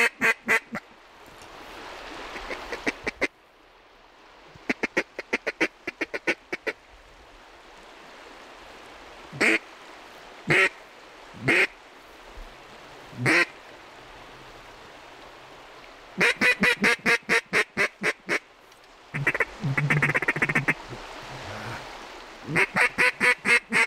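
Mallards quacking: quick runs of short, evenly spaced quacks, with four longer single quacks spaced about a second apart midway.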